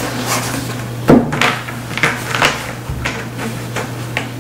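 Rustling and crinkling of a thin white stuff sack as a long LED light strip is pushed into it by hand, in irregular short bursts, with a sharper bump about a second in.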